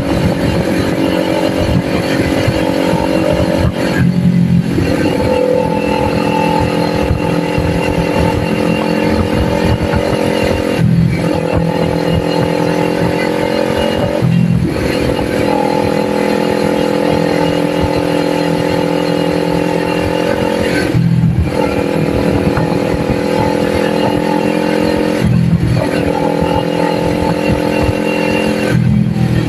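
Kawasaki Ninja 400's parallel-twin engine running steadily at speed, heard from on the bike with wind noise. The engine note breaks off briefly about six times and picks straight back up, like gear changes or brief throttle lifts.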